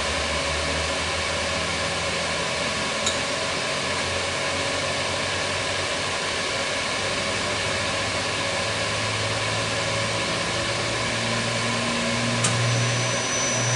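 A machine motor running steadily: a low hum over a hiss. The hum shifts a little higher about two-thirds of the way through, and a couple of faint clicks come through it.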